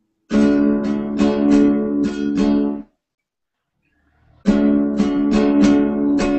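Acoustic guitar strummed on one repeated chord in a swing-rhythm practice pattern, which the teacher still hears as uneven ("still the long one"). The strumming stops for about a second and a half midway, then starts again.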